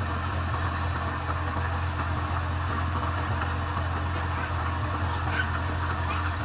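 Wood lathe running with a steady low hum, with an even rubbing hiss from a hand sanding the spinning wooden vase.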